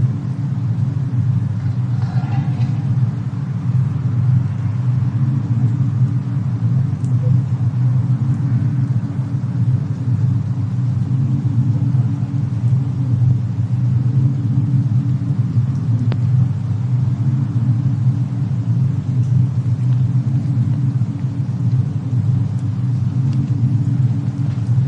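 Fireplace-and-snowstorm ambience: a steady, loud low rumble, with a few faint fire crackles scattered through it.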